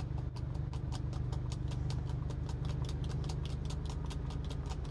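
Pepper grinder twisted by hand, its grinding mechanism giving a quick, even run of clicks, about six a second. A generator's steady low hum runs underneath.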